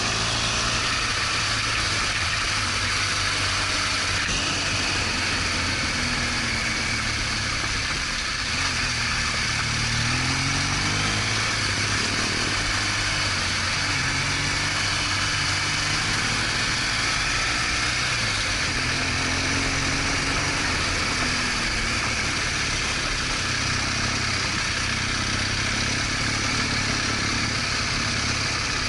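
BMW R1200GS Adventure's boxer-twin engine running under way, its pitch rising and falling a few times as engine speed changes, over a steady rushing noise.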